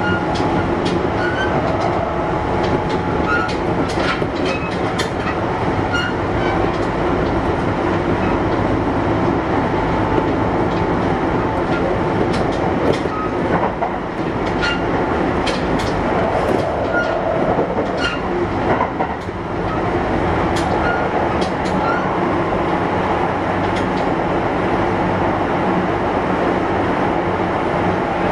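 Kintetsu 1021 series electric train (Hitachi GTO inverter drive) running at speed: steady rolling noise with wheels clicking over the rails, and a steady whine during the first several seconds.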